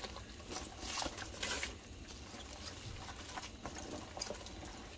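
Chopped cabbage leaves pushed by hand off a paper plate into a pot of boiling chicken broth: rustling leaves and soft pattering splashes, busiest about a second in, then a few scattered light taps.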